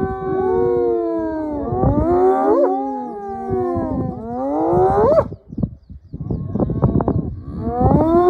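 Spotted hyenas calling, several voices overlapping in drawn-out moaning calls that sweep up in pitch at the end. After a short break about five and a half seconds in comes a run of quick, rough, staccato sounds, then more rising calls near the end.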